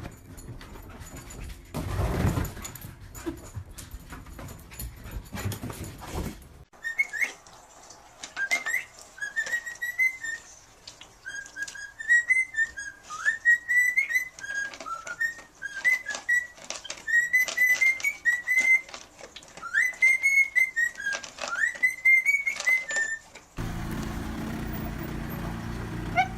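High whistled notes that glide up and down in short phrases, after a first few seconds of clattering knocks.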